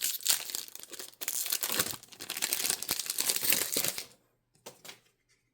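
Foil wrapper of a trading-card pack crinkling and tearing as it is ripped open, for about four seconds, then stopping, with a couple of faint clicks near the end.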